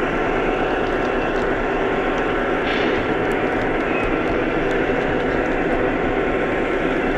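O scale model train running steadily around the loop, a continuous whir and rumble of motor and wheels on the track with faint scattered clicks.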